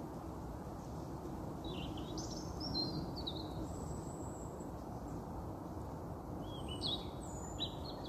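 A small songbird giving two short phrases of high chirping notes, one about two seconds in and one near the end, over a steady low background rumble.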